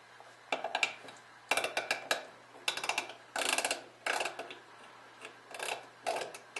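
Small screwdriver turning out the rear-sight screw on a steel STI DVC pistol slide: a string of short scraping clicks, about eight in all, one with each twist of the driver.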